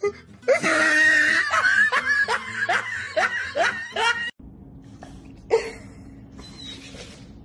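A person laughing hard in quick repeated bursts, about three a second. The laughter cuts off abruptly a little past halfway, leaving quieter room sound with one short sound about two-thirds of the way in.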